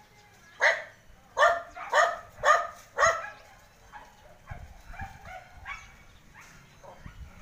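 A dog barking: five loud barks in quick succession, about two a second, then several fainter barks.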